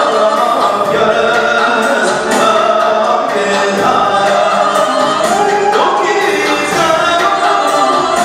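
A man singing through a microphone and PA, with an electronic keyboard accompaniment and a steady beat.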